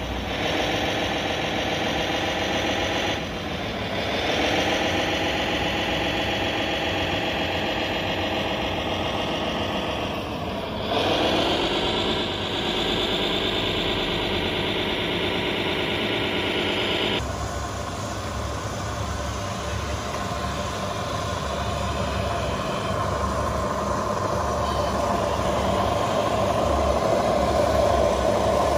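RC model truck engine sound running steadily, its pitch dropping and climbing back twice. About 17 seconds in it cuts abruptly to a different, deeper engine sound that grows louder near the end.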